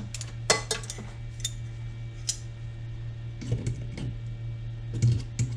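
Light metallic clicks and clinks, a handful of separate ones, as pliers are handled against small metal hardware being turned in by hand, over a steady low hum.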